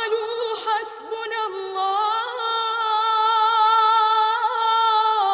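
Unaccompanied singing: one voice holds a long, wavering note.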